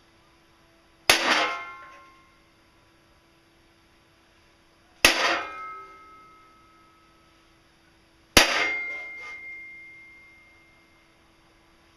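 Three hammer blows on steel while bending sheet metal, spaced about three to four seconds apart. Each is a sharp metallic clang that rings on and fades over a second or two.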